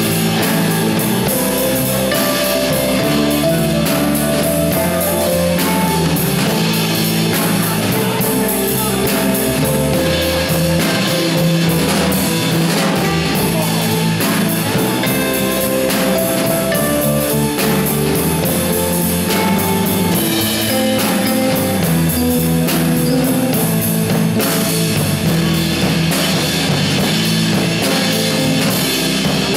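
A small live band playing: acoustic guitar, electric bass and a drum kit with cymbals, steady throughout.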